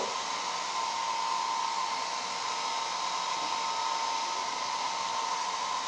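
Handheld hair dryer running steadily while blow-drying hair: an even rush of air with a constant whine.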